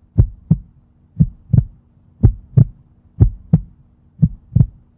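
Heartbeat sound effect: a steady lub-dub double thump about once a second, with dead silence between the beats.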